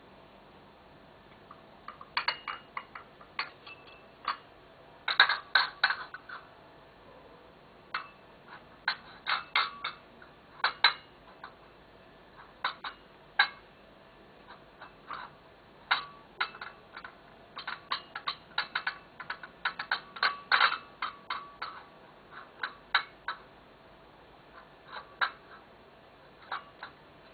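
Crockery and cutlery clinking and knocking as a civet rummages through dinner leftovers on a table. The sharp clinks come irregularly in bunches, some ringing briefly, with short pauses between.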